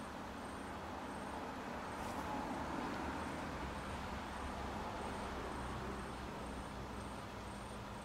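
Microwave oven running: a steady hum with fan noise, and a faint click about two seconds in.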